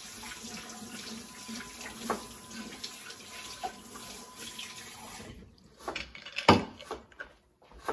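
Kitchen tap running as something is washed under it; the water stops about five seconds in, followed by a few knocks and one sharp clack.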